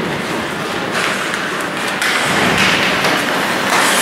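Ice hockey play on a rink: skates scraping the ice, with a few knocks from sticks and puck against the boards.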